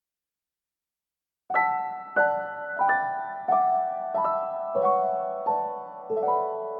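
Soft background piano music beginning about a second and a half in, with notes struck about every 0.6 seconds, each ringing and fading before the next.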